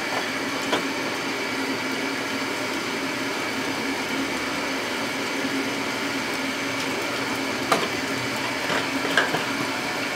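A steady machine-like whir and hum in a kitchen, with a few light clicks from utensils or a bottle, the clearest near the end.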